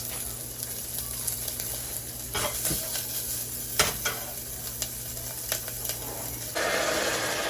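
Cut-up smoked sausage sizzling in a hot pan, with a few sharp knocks of a utensil against the pan while it is stirred. Near the end a louder, steady pouring of liquid suddenly starts as water is added to the pan.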